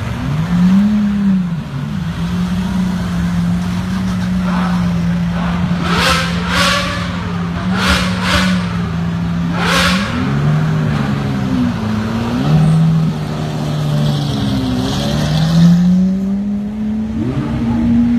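Lamborghini Aventador V12 supercar engines running slowly past, with pitch rising and falling as the throttle is blipped. Several sharp, brief bursts come about six to ten seconds in.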